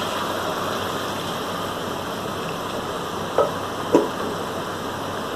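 Raw mutton pieces frying in hot oil in a karahi, a steady sizzling hiss just after the meat went in. Two brief clinks come about three and a half and four seconds in.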